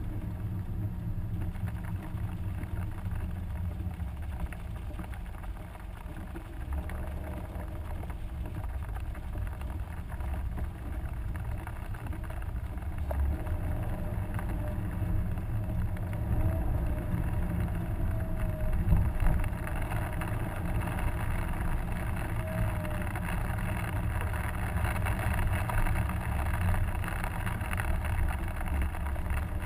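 Inside the cabin of a 2011 Subaru WRX hatchback driving hard on a wet track: steady low engine and road rumble from its stock EJ255 turbocharged flat-four, growing somewhat louder about halfway through.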